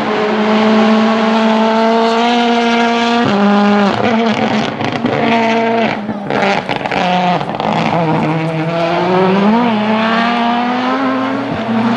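Rally car engine running hard at high revs along a tarmac stage, its pitch stepping and dipping with gear changes and lifts, a sharp drop a little over three seconds in, then climbing again.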